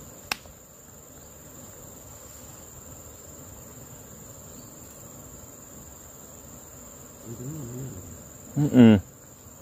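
Crickets trilling in a steady high-pitched drone. There is a single sharp click just after the start, and a man makes a short, louder vocal sound near the end.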